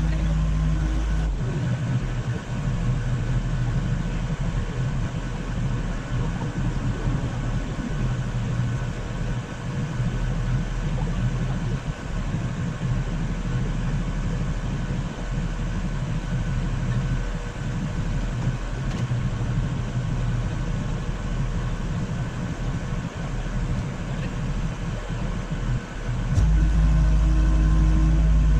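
Work-machine engine idling steadily. Near the end a louder, deeper engine rumble sets in and holds.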